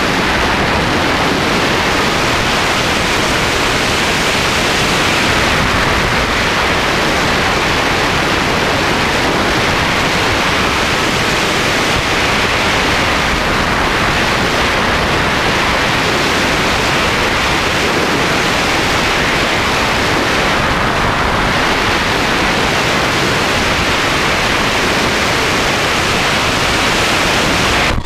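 Steady, loud wind rush over the onboard camera of an S800 Sky Shadow FPV flying wing in fast flight.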